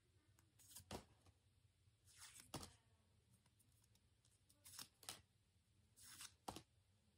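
Pokémon trading cards being flipped through one at a time: four quiet swishes of a card sliding off the stack, each ending in a sharp click, about every one and a half seconds.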